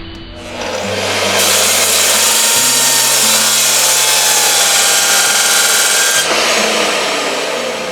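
A power tool running on workpiece material for about five seconds, a dense hissing noise that starts about a second and a half in and cuts off near six seconds, over background music with a stepping bass line.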